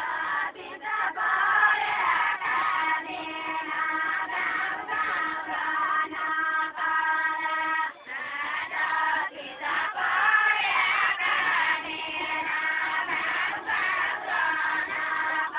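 A group of women singing a Deuda folk song together, the sung phrases rising and falling with short breaks between them, over a steady pitched tone.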